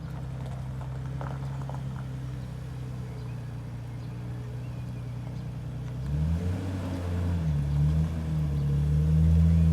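Nissan Skyline R32 GT-R's RB26 twin-turbo straight-six engine idling steadily. About six seconds in, a louder sound whose pitch rises and shifts joins it.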